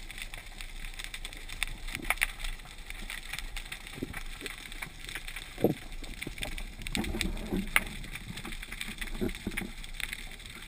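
Underwater ambience heard through a camera housing on a speargun: a steady hiss with scattered faint clicks and a few dull knocks, the loudest about halfway through.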